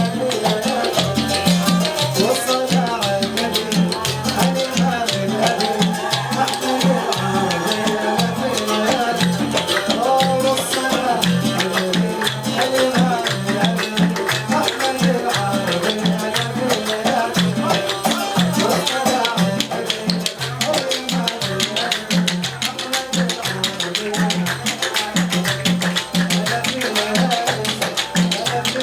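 Arabic wedding band music, largely without vocals, driven by a fast, steady percussion beat over a repeating bass line.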